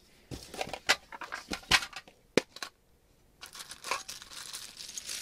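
Battery cells and metal tins being handled, giving a few sharp clicks and knocks over the first two and a half seconds. About three and a half seconds in, a plastic bag starts crinkling and keeps on.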